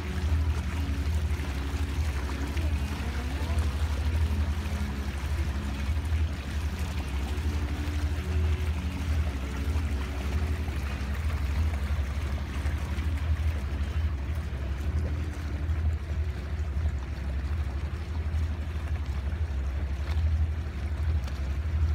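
Sailing catamaran under way: a steady low rumble with water rushing and swishing along the hulls.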